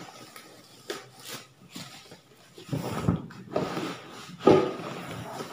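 Cardboard packaging being handled and opened: rustling and scraping with a few knocks, quiet at first and busier in the second half, with the loudest knock about a second before the end.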